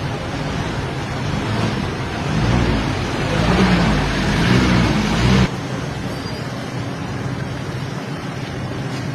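Motor vehicle engine running with road noise; it grows louder about two seconds in and cuts off suddenly a little past halfway, leaving a quieter background.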